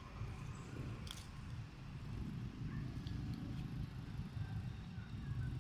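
Low rumble that grows louder from about two seconds in, with one sharp click about a second in and a few faint high chirps.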